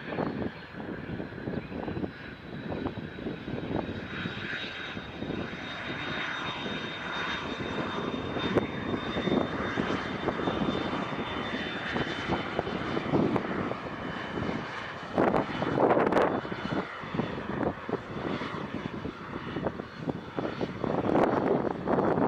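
Airplane engine noise, with a high whine that slowly falls in pitch as the aircraft passes.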